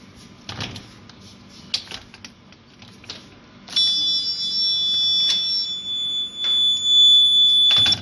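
A few light knocks as the door is handled, then about halfway through the piezo buzzer of a homemade clothes-pin door alarm sounds a steady high-pitched tone. It is set off by the door opening, which pulls the insulating card from between the clothes-pin contacts and closes the circuit. It stops abruptly near the end.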